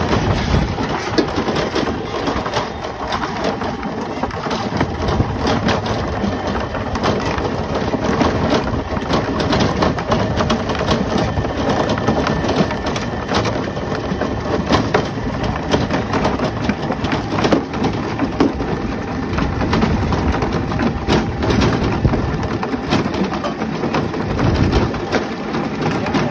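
Motorized mango pulping machine running and crushing mango pieces fed into its hopper: a steady, dense clatter full of small cracks.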